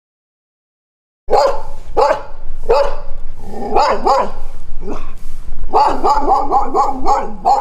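A dog barking over and over, starting suddenly about a second in; the barks come faster, in a quick run, near the end.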